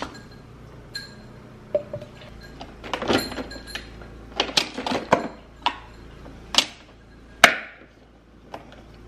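Plastic cups and a syrup bottle being picked up and set down on a stone kitchen countertop: a string of knocks and clatters, the loudest a sharp knock about seven seconds in with a short ring, over a steady low hum.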